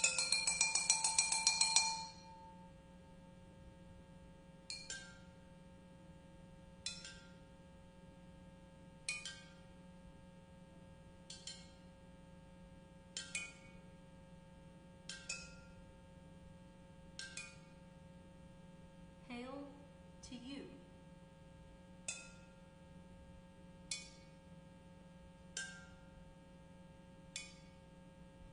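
Terracotta flowerpots struck as percussion: a fast run of strikes that stops about two seconds in, then single strikes about every two seconds, each ringing briefly.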